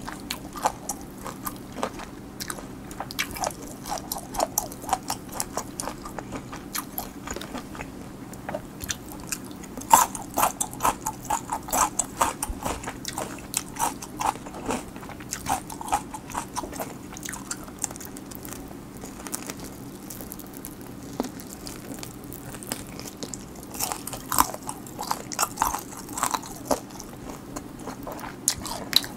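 Close-miked eating of fried chicken: crisp crunching bites and chewing, the crunches coming in irregular clusters, thickest about ten seconds in and again near the end.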